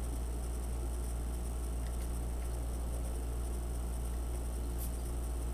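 Steady low electrical hum with faint background hiss, and a single faint light click about five seconds in.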